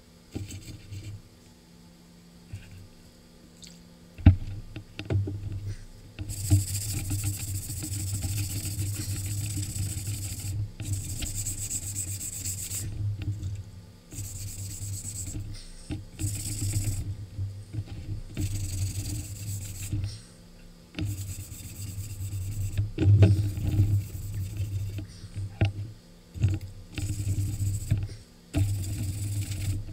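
Rubbing and scrubbing strokes along a wet, rusty steel sword blade as the rust is worked off, in stretches of a second or two with short pauses. There are a couple of sharp knocks, about four seconds in and again near 23 seconds.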